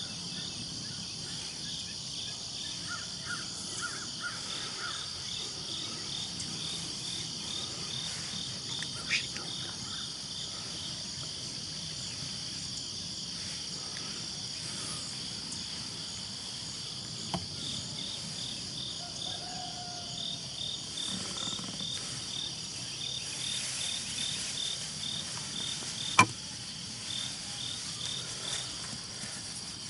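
Crickets and other insects chirping steadily: a constant high buzz with a row of rhythmic chirps. There are a few faint clicks, and one sharp click near the end.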